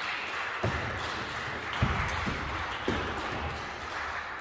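Table tennis ball struck in a rally: four sharp clicks of the celluloid ball off paddle and table, a few tenths of a second to a second apart, the loudest about two seconds in.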